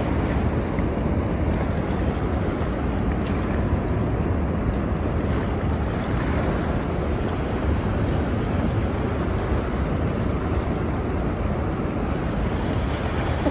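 Steady rush of turbulent dam tailwater, with wind buffeting the microphone.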